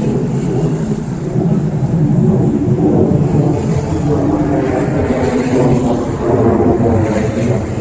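Loud, steady engine rumble from vehicles, with no sharp breaks.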